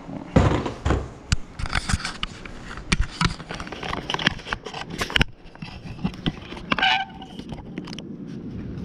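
Handling noise from a handheld camera being carried and set down on a hardwood floor: a run of knocks, clicks and scrapes, with a short pitched sound near the end and a steady low rumble after it.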